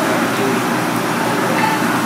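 Steady background din of a busy shop or market: a constant noisy hum with indistinct voices far off.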